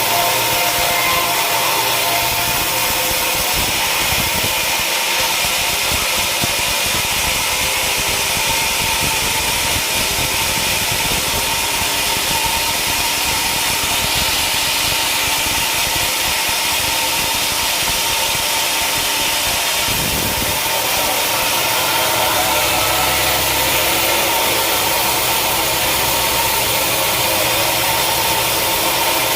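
Sawmill machinery running steadily, a loud mechanical din with a steady whine. A deeper hum comes in about three-quarters of the way through.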